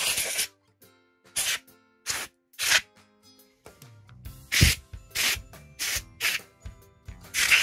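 Can of compressed air sprayed in about ten short hissing bursts into a laptop's cooling fan and heatsink to blow the dust out.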